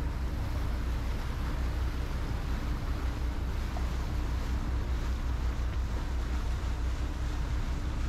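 Motorboat engine running steadily under way, with water rushing past the hull and a low rumble of wind on the microphone.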